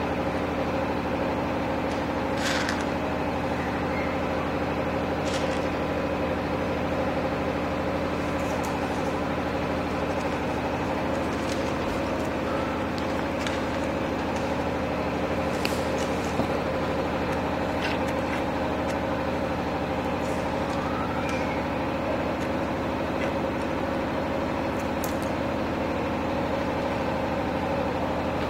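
A steady, unchanging motor hum like an idling engine, with a few faint, light clicks scattered through it.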